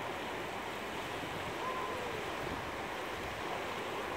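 Floodwater rushing in a steady, even wash of noise.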